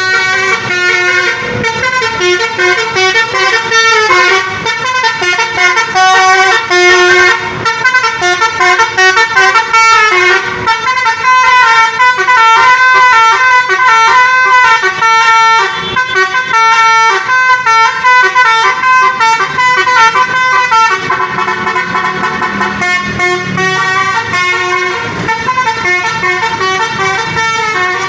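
Loud Indonesian 'telolet' bus horn, a set of multi-tone air horns playing quick melodic runs, the notes changing every fraction of a second, over and over.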